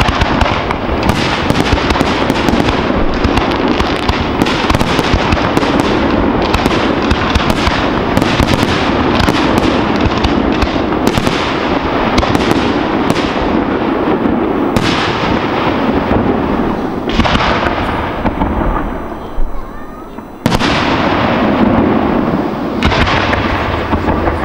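Fireworks display: aerial shells bursting in a rapid, dense barrage of bangs for about the first fourteen seconds. After that come fewer single loud bangs, each a couple of seconds apart.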